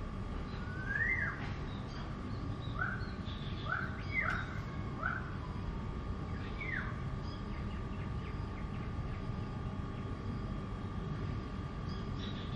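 Birds chirping outside: several short, quick chirps in the first half, then they stop, over a steady high tone and a low background rumble.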